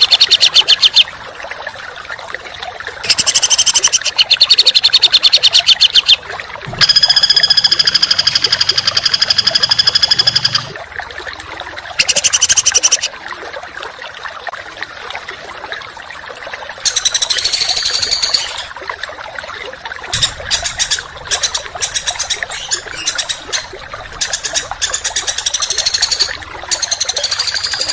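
Songbird giving bursts of rapid, harsh repeated notes ('tembakan'), about six bursts of one to four seconds each, with scattered clicky notes between them over a steady background hiss.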